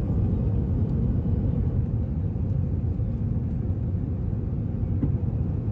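Steady low rumble of a running vehicle, even and unbroken.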